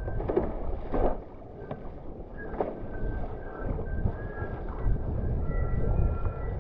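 Wind buffeting the microphone of a board-mounted action camera on a wing foil board riding up on its hydrofoil, with water rushing and splashing below. There is a splash about a second in, and a faint high whistle comes and goes.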